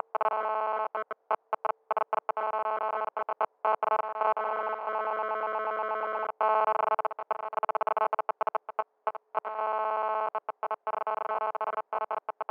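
Synthesized audio-test tone: a steady chord of several held electronic notes that keeps cutting out and back in, stuttering with many brief silent gaps.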